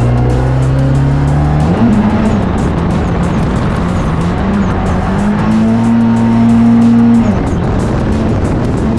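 Drift car engine revving hard under load with tyres squealing. The revs climb, jump suddenly about two seconds in, hold high for a stretch, then drop near the end.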